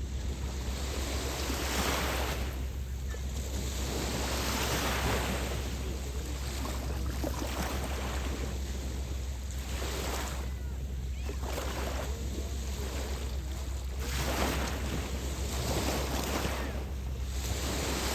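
Small lake waves breaking and washing up the beach, each wash swelling and fading every two to three seconds. A steady low rumble of wind on the microphone runs underneath.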